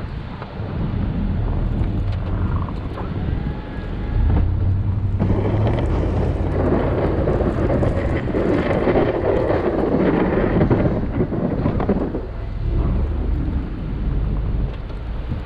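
Snow-plowing machine's engine running with a steady low rumble, wind buffeting the microphone. A louder rushing noise swells from about five seconds in and eases off near twelve seconds.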